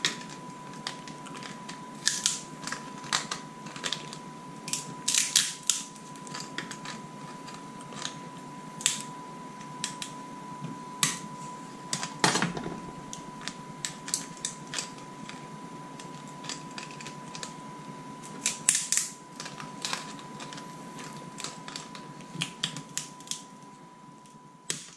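Raw lobster claws being cracked open with a metal shellfish cracker: irregular sharp cracks and clicks of shell and metal tool, the loudest crack about halfway through. A faint steady high tone hums underneath.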